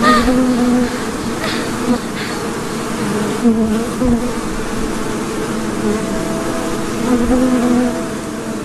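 A swarm of insects buzzing: a steady drone whose pitch wavers a little throughout.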